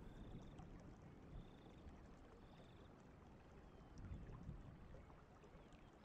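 Faint, steady rush of flowing water as a soft background, with three short, faint high chirps in the first three seconds.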